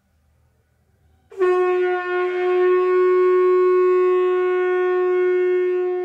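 One long, steady horn-like blast: a single held note that starts suddenly about a second in and keeps the same pitch.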